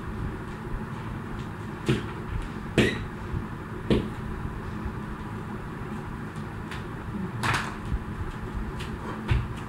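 A few scattered slaps and thumps from a jump rope hitting a hard floor and feet landing, spaced irregularly rather than in a skipping rhythm. A steady low hum runs underneath.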